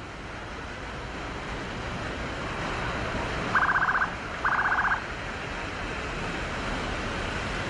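Steady outdoor noise with two short bursts of a rapid electronic trilling beep, the first about three and a half seconds in and the second just under a second later.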